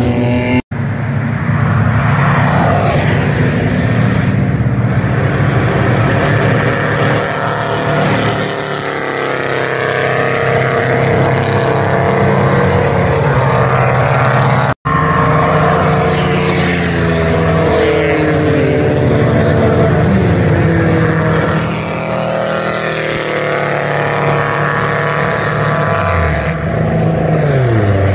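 Several race cars going past on a wet circuit, their engines running hard, with pitches rising and falling as each one passes, over a hiss of tyres on the wet track. The sound breaks off for an instant twice.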